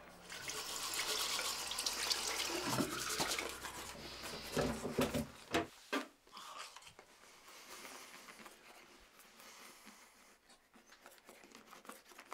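A tap running into a bathroom sink, stopping abruptly about six seconds in. After it come quieter scratchy sounds and small clicks of teeth being brushed.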